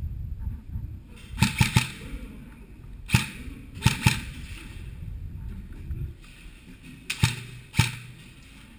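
Airsoft guns firing single shots: about eight sharp pops, a quick triple, then single shots and pairs spread over the stretch.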